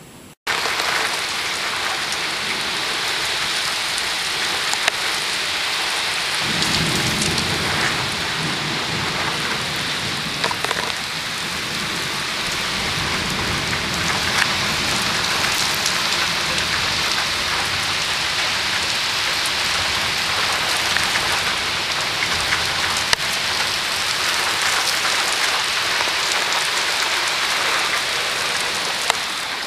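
Heavy rain pouring down steadily during a bow-echo squall-line thunderstorm, a dense loud hiss. A low rumble of thunder comes in about six seconds in and fades over several seconds.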